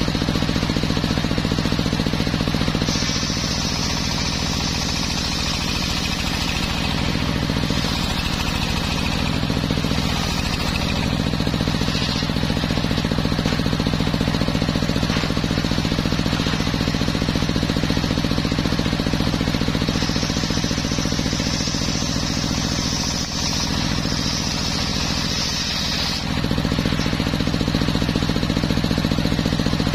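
Homemade circular sawmill running steadily with a low hum, its blade cutting through teak in three passes, each adding a high hissing whine: about three seconds in, again near eight seconds, and for several seconds after twenty.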